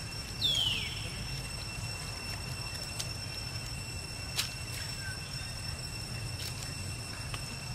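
Outdoor ambience at a forest pond: a steady high whine over a low rumble, with one short falling squeal about half a second in and a few faint ticks.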